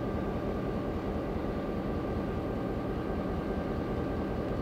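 Steady low rumble of a locomotive standing in a rail yard, with a faint steady hum over it.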